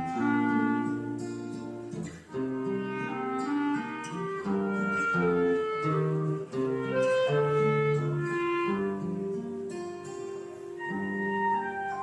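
A clarinet and an acoustic guitar playing together, the clarinet carrying the melody over the guitar's accompaniment.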